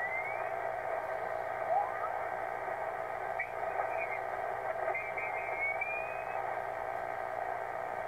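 Yaesu FT-450D HF receiver being tuned across the 80 m band on lower sideband: steady hiss and static with whistling tones that slide in pitch as the dial passes signals. A longer rising whistle comes about five seconds in.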